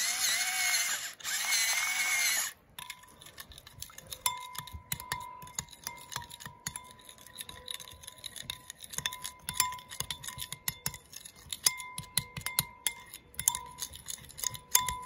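Salt mill grinding salt in two bursts of about a second each, then a metal spoon stirring a thick mustard-and-oil sauce in a ceramic bowl, with light scattered clinks and scrapes against the bowl.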